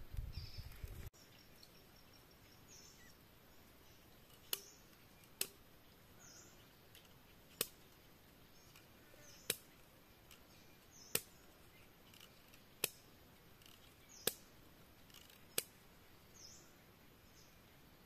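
About eight sharp snaps or clicks of bamboo, spaced a second or two apart, as thin bamboo strips are bent and worked by hand, with a few faint, short, high bird chirps between them. A low rumble cuts off about a second in.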